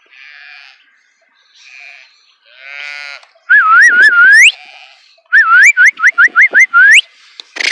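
Sheep bleating a few times, then loud human whistling from about three and a half seconds in: a quick run of short whistles, each sliding upward, of the kind a shepherd uses to drive a flock.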